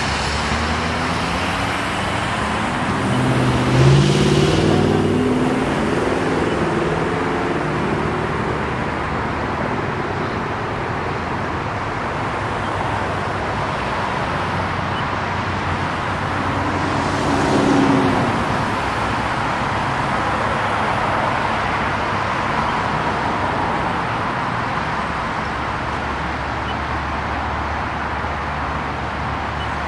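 Street traffic: cars and a pickup truck driving past close by, a steady wash of engine and tyre noise. One passing vehicle is louder about four seconds in, and another near eighteen seconds.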